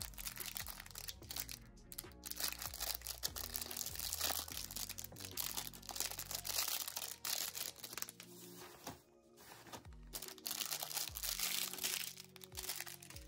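Packaging crinkling and rustling as it is handled, with a brief lull about two-thirds of the way through, over background music.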